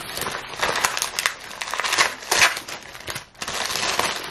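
A parcel's packaging being handled and opened by hand, crinkling, crumpling and tearing, with a short lull about three seconds in.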